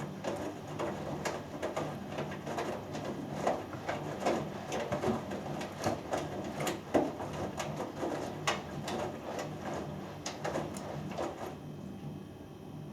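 Hoover Dynamic Next front-loading washing machine in its main wash: the drum turns, and the wet laundry tumbles and splashes irregularly over a steady motor hum. Near the end the tumbling stops as the drum pauses, leaving a quieter hum.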